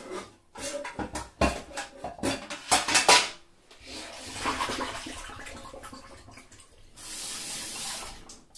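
Dishes and utensils clattering in a kitchen sink, with knocks in the first few seconds, then water running from the tap. The stream turns steady near the end and cuts off suddenly.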